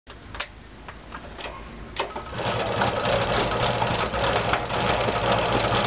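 A few sharp clicks, then about two seconds in a reworked Tomos two-stroke moped engine starts and runs steadily with a fast, even beat.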